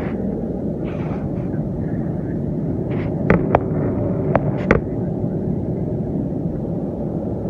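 Steady low rumble of an airliner cabin in cruise flight: engine and airflow noise heard from a window seat. A few sharp clicks come about halfway through.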